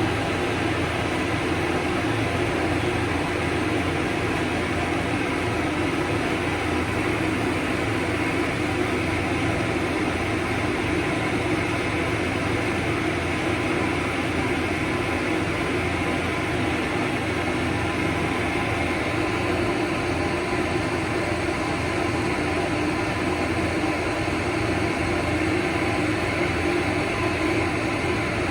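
Hair dryer blowing steadily on a golden retriever's coat, a constant whooshing hum without a break.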